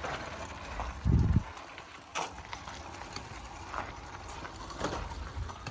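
Handling noises around a small mini bike that is not running: a dull thump about a second in, then a few light clicks and knocks.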